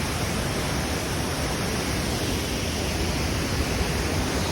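Waterfall: falling water rushing as one steady, even noise.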